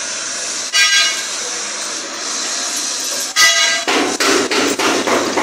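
A truck's engine runs steadily under two short horn beeps, about a second in and again a little after three seconds. Near four seconds rapid hammering starts, several blows a second: a denter beating metal at a truck body repair workshop.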